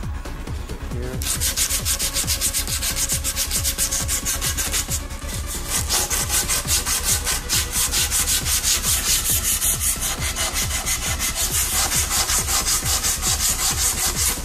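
A folded strip of 80-grit sandpaper pulled back and forth around a bamboo bike-frame tube, shoe-shine style, in a quick, even rhythm of rasping strokes that starts about a second in. The sanding roughens the bamboo so the carbon-fibre wrap adheres better.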